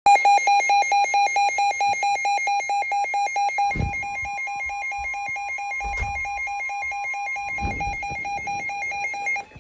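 Electronic emergency alert tone: a harsh beep repeating rapidly, about six times a second, starting abruptly and stopping near the end. Three dull low thumps come through it at about four, six and nearly eight seconds in.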